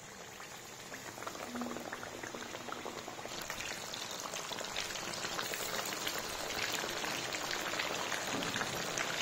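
Battered chicken breast going into hot vegetable oil and deep-frying in a pan: a dense crackling sizzle of bubbling oil that grows louder over the first few seconds and fuller about three seconds in.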